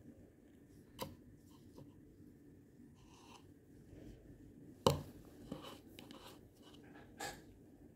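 Handling noises: scattered light taps and rustles, with a sharp knock about a second in, a louder one just before five seconds and another near the end.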